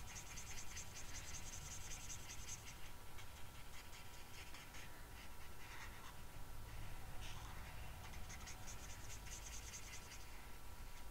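Stampin' Blends alcohol marker nib scratching across cardstock in quick back-and-forth colouring strokes. The strokes come in runs with short pauses.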